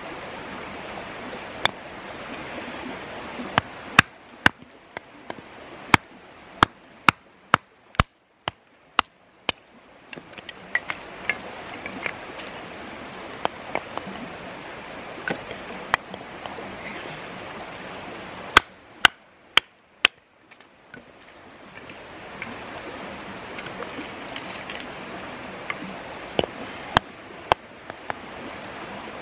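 Batoning firewood: a wooden stick knocks on the spine of a custom leaf-spring steel knife set into a short log, splitting it, in sharp irregular knocks that come in clusters, the densest run between about four and ten seconds in. Under them runs the steady rush of a flowing creek.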